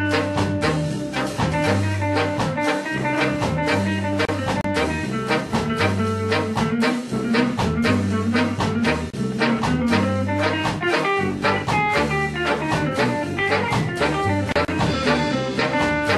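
Ska instrumental played by a brass-led band: saxophones and brass carry the tune over a steady drum beat and bass.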